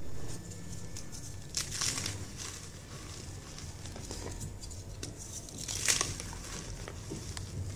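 Hands crushing and squeezing loose powdered gym chalk, a soft gritty crunching and crumbling with a few sharper crunches, the loudest about six seconds in as a handful is pressed between the palms.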